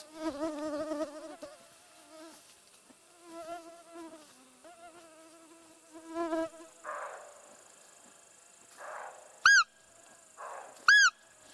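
A fly buzzing close by, its pitch wavering, for the first few seconds. Near the end come two sharp, loud squeaks from a roe deer call, about a second and a half apart. A few short hoarse sounds fall in between.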